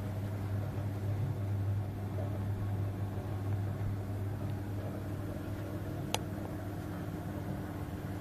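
Potterton Netaheat 16-22 gas boiler kettling with its burner lit: a steady low rumbling drone with a faint higher tone over it, the sign of water boiling locally in an overheating heat exchanger. A single sharp click comes about six seconds in.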